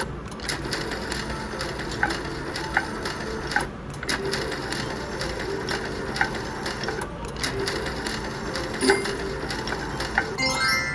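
Slot machine spin sounds: rapid clicking and ticking with short electronic tone blips over steady casino-floor noise, and a quick run of chime tones near the end.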